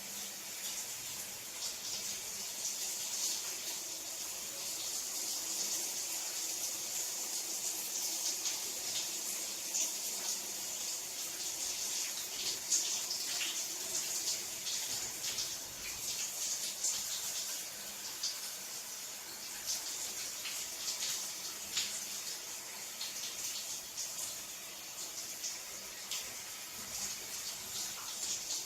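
Shower running steadily: a continuous hiss of water spray with small splashes and crackles throughout.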